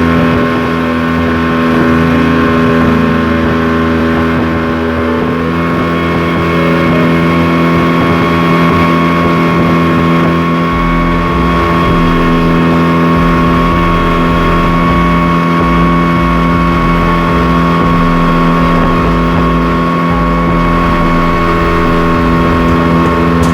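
Boat engine running steadily at a constant speed, a continuous droning hum with a fixed pitch.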